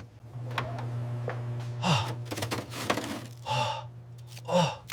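A person gasping and sighing several times in short, wordless vocal reactions, over a steady low hum.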